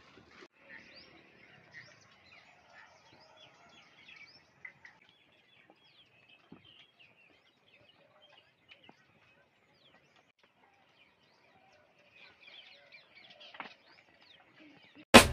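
Faint chirping of small birds, many short scattered calls, with a few soft knocks. A sudden loud burst at the very end as music begins.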